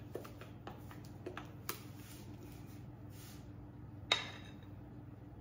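Spoon tapping and scraping against a glass mixing bowl while scooping muffin batter: a few light clicks, then one sharp clink with a short ring about four seconds in.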